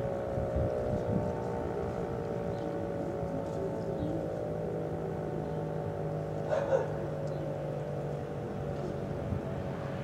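Siro-Drone rotating warning siren sounding a steady drone of several tones at once, not very loud. A brief, louder unidentified sound breaks in about two-thirds of the way through.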